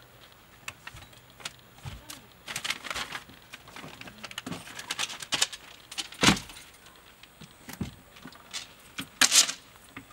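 Camping gear being unloaded and handled at an open car boot: scattered clicks, rattles and knocks, with louder knocks about six and nine seconds in.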